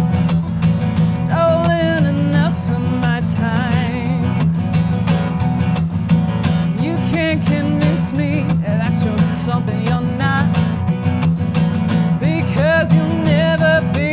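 A high voice sings with a wide vibrato over strummed acoustic guitar chords, in phrases with short gaps between them, while the guitar keeps strumming.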